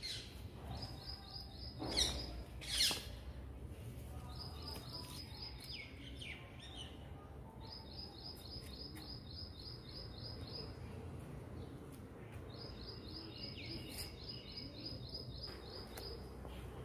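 Garden birds calling: a fast trill of evenly repeated high notes comes in four runs of a few seconds each. Two louder, sweeping calls come about two and three seconds in, over low background noise.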